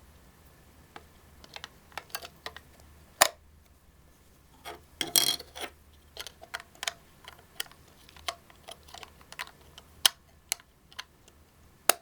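Irregular clicks and taps of a small plastic alarm clock being handled, with a denser rattling cluster about five seconds in.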